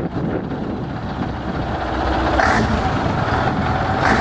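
Scania 142M V8 diesel truck idling with a steady low rumble, with two short hisses, one about halfway through and one at the end.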